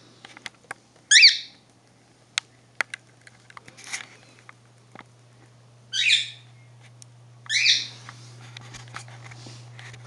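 A small pet parrot giving three loud, harsh calls: about a second in, at around six seconds and at around seven and a half seconds, with scattered light clicks in between.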